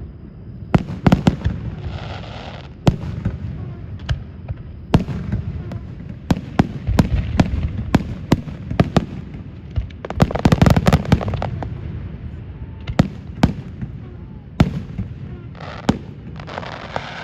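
Aerial fireworks display: a steady run of booming bursts and sharp cracks at irregular intervals, with thick clusters of rapid crackling about a second in, midway, and near the end.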